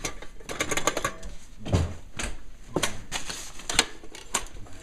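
Handling noise: a quick, irregular run of clicks and knocks as fingers fumble over the camera body and it is picked up and moved.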